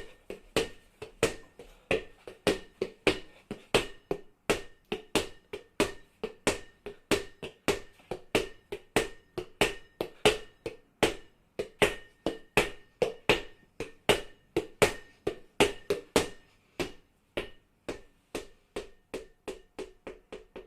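A ball bouncing over and over on a hard floor, a steady run of sharp bounces at about two to three a second, each with a short ring.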